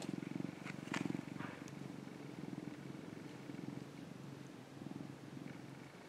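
Orange tabby cat purring, a low rhythmic purr that swells and eases with each breath. A few light clicks and rustles in the first second and a half.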